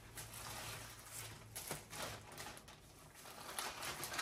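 Faint rustling and a few soft taps from items and plastic bags being handled and sorted through.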